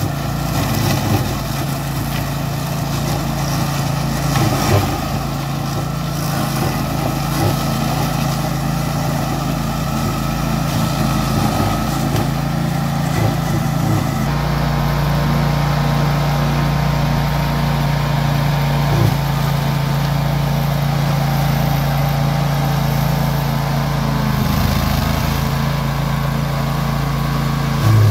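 Meccanica Benassi Fox 110 4WD ride-on brush mower running steadily under load as it cuts through tall grass and brush. Scattered knocks are heard in the first half.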